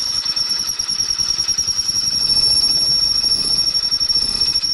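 Power drill running a step drill bit through metal, a steady high-pitched squeal as the bit cuts.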